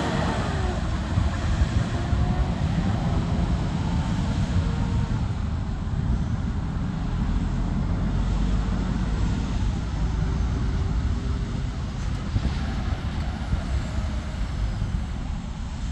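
Heavy truck with a trailer driving slowly through traffic, its diesel engine and tyres giving a steady rumble, with faint engine notes rising and falling as it changes speed, mixed with passing cars.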